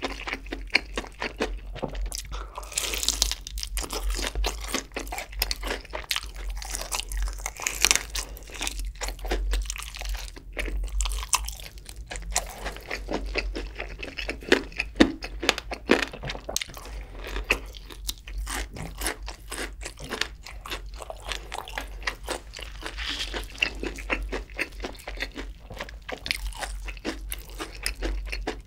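Close-miked crunching and chewing of crispy fried chicken coated in cheese sauce: dense, sharp crackles of the breaded crust with wet chewing between bites.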